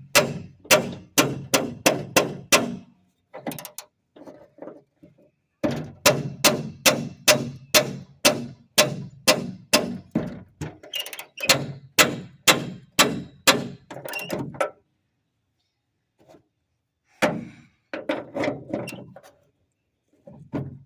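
Repeated sharp metallic knocks from work on the Jeep's bolts and nuts, about two to three strokes a second. They come in three runs with pauses between, the longest run lasting about nine seconds.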